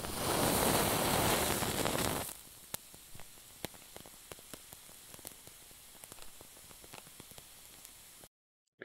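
A lighter's flame rushing at the wick of a small oil lamp for about two seconds, then the lit wick burning with a soft crackle of scattered ticks, cutting off suddenly near the end.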